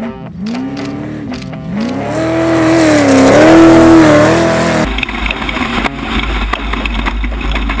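Off-road race vehicle engine revving hard, its pitch rising and falling several times and loudest a little past the middle. About five seconds in it cuts off abruptly, replaced by a noisy rattling with scattered clicks.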